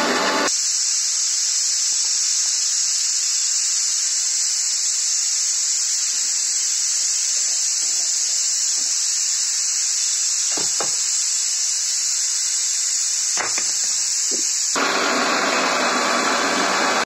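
Bajaj mixer grinder running, grinding a wet white batter in its steel jar, for about half a second at the start and again from about fifteen seconds in. In between there is a steady high hiss with a couple of faint knocks.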